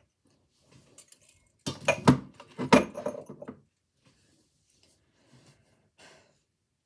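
A small handmade ceramic pot and its ill-fitting lid clinking and knocking together as they are handled and set down. There is a quick run of clinks about two seconds in, then a few faint taps.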